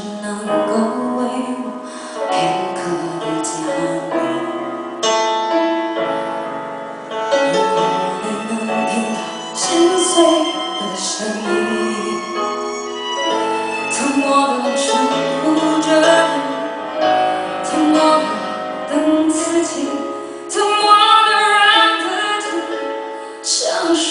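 A Mandarin pop ballad played back through a BenQ treVolo S electrostatic Bluetooth speaker: piano with a woman's singing voice.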